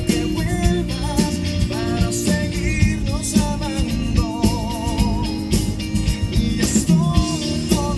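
Music: a Spanish-language love song with a steady beat and a wavering lead melody.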